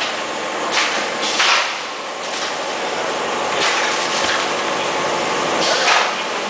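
SBS bitumen membrane production line machinery running with a steady mechanical din. Short hissing bursts rise out of it about four times.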